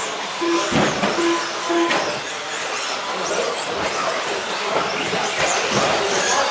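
Several radio-controlled stadium trucks racing on a carpet track, their motors whining high and rising and falling as they accelerate and brake. Three short beeps sound in the first two seconds.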